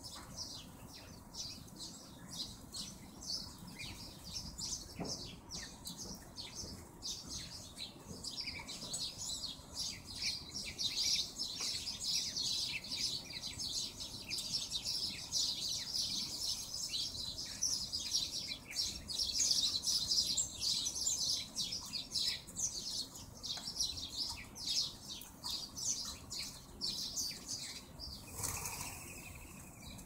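A flock of small birds at a feeder chirping continuously: many short, high chirps overlapping. Near the end comes a brief rush of wingbeats as the flock takes off.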